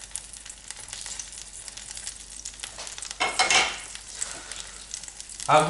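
Thawed pelmeni frying in oil in a skillet, sizzling and crackling, over a gas flame that the cook judges too high. Wooden spatulas stir and scrape them in the pan, with a louder burst of sizzle and clatter about three seconds in.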